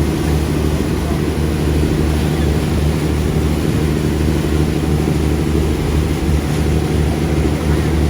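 Tour boat's engine running steadily, a low even hum with light noise above it.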